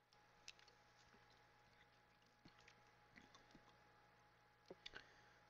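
Near silence, with a few faint small clicks and ticks from drinking soda out of a plastic bottle: swallowing, and the bottle being handled and lowered.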